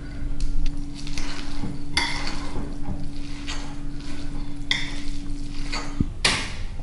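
Metal fork stirring a moist tuna and breadcrumb filling in a glass bowl, with repeated scraping and several sharp clinks of the fork against the glass.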